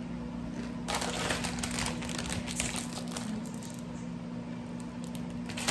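Crinkling of a plastic tortilla-chip bag being handled, loudest for a couple of seconds about a second in and again briefly near the end. An air conditioner hums steadily underneath.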